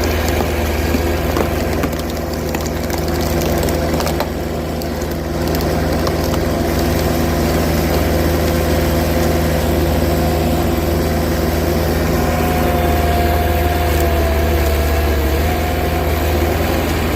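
Mini skid steer engine running steadily. A higher whine joins for a few seconds near the end.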